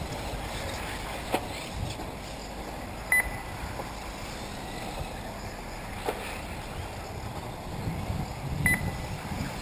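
1/8-scale electric off-road RC buggies racing around the track: a steady running noise with a few sharp knocks from the cars. Two short high electronic beeps, one about three seconds in and one near the end.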